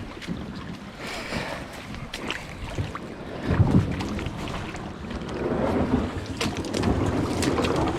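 Plastic Crescent kayak being dragged and pushed through a log jam: the hull bumps and scrapes against logs and branches. There are scattered sharp cracks of sticks and a heavier thump about three and a half seconds in.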